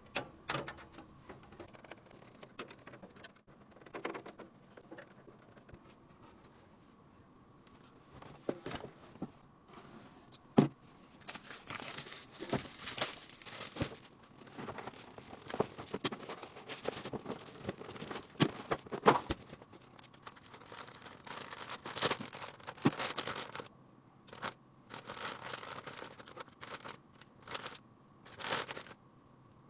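Hands handling computer parts during a PC build: irregular rustling and crinkling with many light clicks and a few sharper knocks. The faint steady hum underneath carries on throughout.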